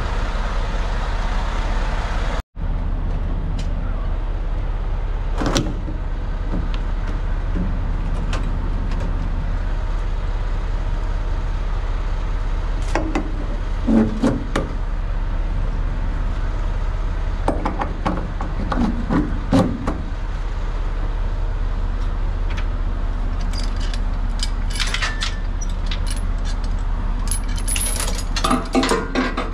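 Steady low drone of an idling semi truck's diesel engine, with scattered metallic clanks and jangling rattles as the trailer's dolly, chain and air-line connections are handled.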